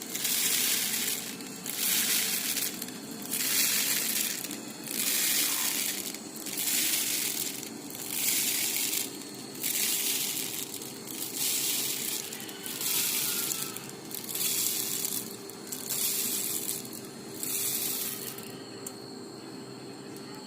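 Automatic bottle filling and capping machine running through its cycle: a repeated hissing burst about every second and a half over a steady hum. The bursts stop near the end.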